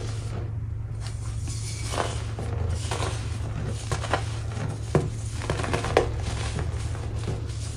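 Molded baking soda being crushed and crumbled by hand, with soft crumbling powder and a sharper crunch about once a second. A steady low hum lies underneath.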